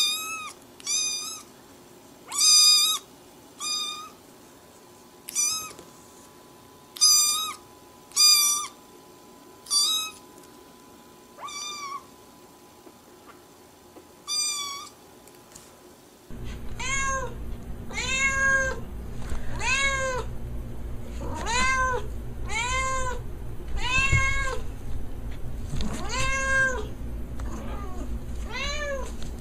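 A black kitten meowing again and again, short high-pitched meows about a second apart. About sixteen seconds in it changes to a calico cat meowing repeatedly, lower-pitched meows that rise and fall, over a steady low background noise.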